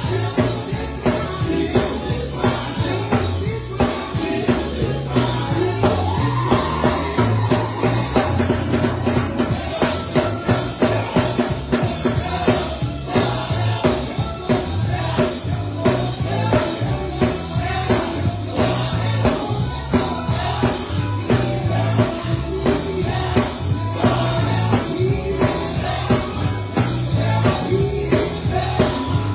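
Live gospel band playing with a steady drum beat, bass and guitar, with voices singing.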